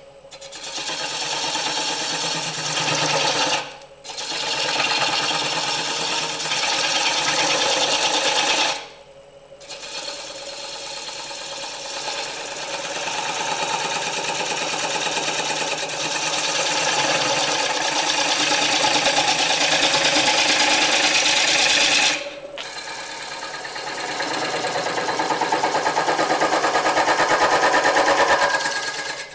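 A gouge cutting the outside of a natural-edge bowl blank spinning on a wood lathe, with a steady rapid pulsing as the tool meets the uneven blank. The cut stops briefly three times, about 4, 9 and 22 seconds in, as the tool is lifted off.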